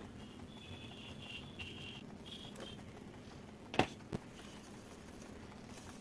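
Two sharp clacks close together about four seconds in, a steel wire whisk knocking against the mixing bowl as it is set down, over a faint steady background with faint high chirps in the first few seconds.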